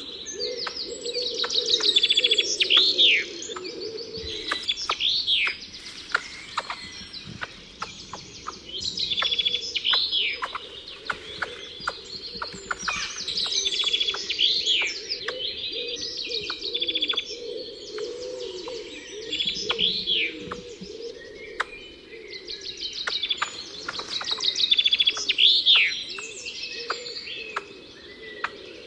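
Wild birds singing and chirping, one bird repeating a short song phrase about every four to five seconds over a bed of rapid chirps and ticks.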